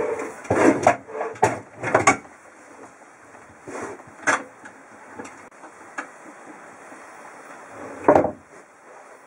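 Wooden camper dinette table being lowered and shifted into place to make a bed: a quick cluster of wooden knocks and scrapes in the first two seconds, a few single knocks, then a heavier thump near the end.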